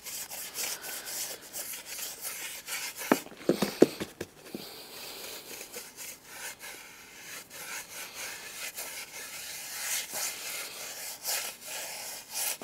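Paintbrush scrubbing rust converter onto the inside of a brake drum: a repeated bristly rubbing, with a few light knocks about three to four seconds in.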